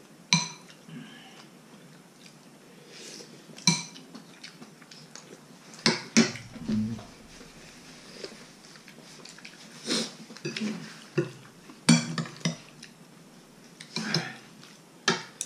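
Metal spoons and forks clinking against ceramic bowls and plates during a meal, with a sharp clink every few seconds.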